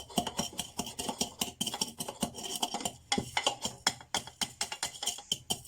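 Pestle pounding green tea grains in a plastic mortar: a fast, uneven run of short knocks, several a second, crushing the tea to powder.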